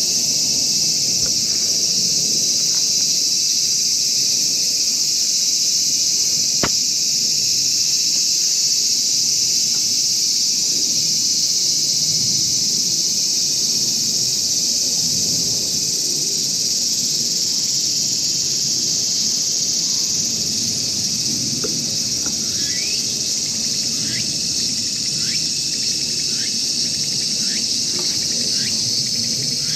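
Insects droning in a steady, high-pitched chorus, with a few short rising chirps over the last several seconds.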